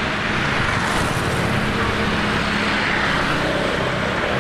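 Steady road traffic noise, with motor vehicles running past on the street.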